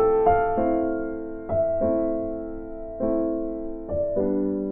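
Slow background piano music: chords struck about once a second, each left to ring and fade before the next.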